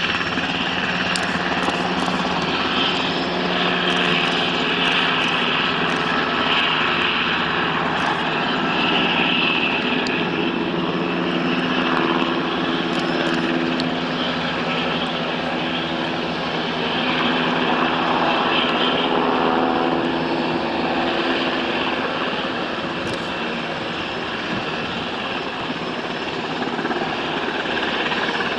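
Sikorsky UH-60 Black Hawk helicopter in flight, its rotors and twin turboshaft engines making a steady, dense noise that swells and eases slowly in loudness.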